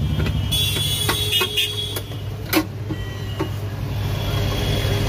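Electric motor of a JEEVA mini sugarcane juice machine running with a steady low hum, its grooved steel rollers turning. Over it come a metallic rattle and scrape from about half a second to two seconds in, and several sharp clicks, the loudest about two and a half seconds in.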